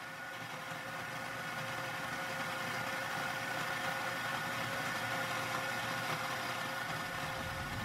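Steady mechanical hum with a constant tone running through it, growing slowly louder over the first couple of seconds, then holding level.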